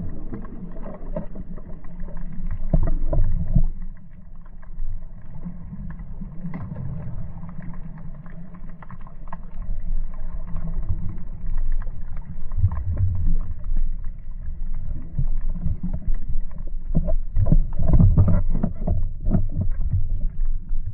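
Muffled underwater noise: a low rumble of moving water broken by many short knocks, busiest about three seconds in and again near the end.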